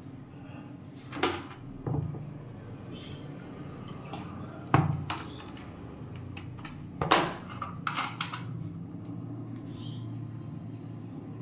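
Carbonated soda poured from a plastic bottle into a glass bowl, with a few sharp clicks and knocks as the bottle and the glass are handled, over a steady low hum.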